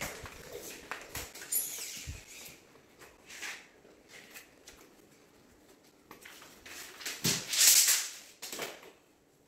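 Hand work on a plasterboard strip lying on a concrete floor: scuffing footsteps and light knocks, then a loud rasping noise of about a second near the end as the board is measured and marked, with a shorter one just after.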